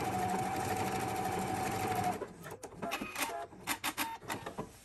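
Electric sewing machine running steadily, stitching a seam, then stopping a little over two seconds in, followed by a scatter of short clicks and rattles.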